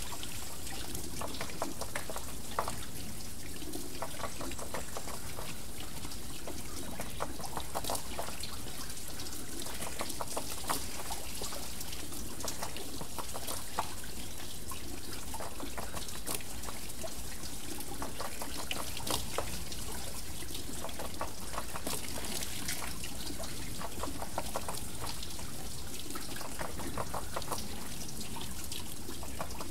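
Water pouring and trickling off a water wheel: a steady rush broken by many small, irregular splashes.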